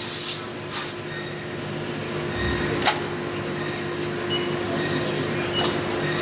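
Steady mechanical hum with a hissing background, broken by a single sharp click about three seconds in.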